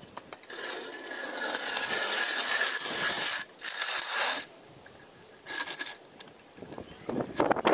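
Scraping across the concrete driveway as heavy jacking gear is dragged into place under the car: one long scrape, two shorter ones, then some clatter near the end.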